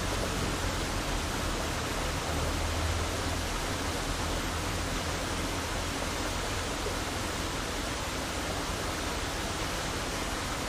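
Steady rushing of flowing stream water, an even wash of noise, with a low rumble during the first few seconds.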